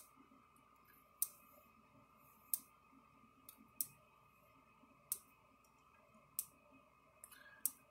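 KUBE Argus 4000 electric fence charger clicking once with each output pulse, sharp single clicks evenly spaced about every 1.3 seconds. Each click is the charger discharging its storage capacitor into the fence output.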